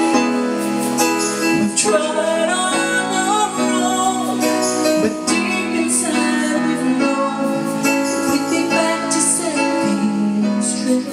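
A song: a voice singing over acoustic guitar.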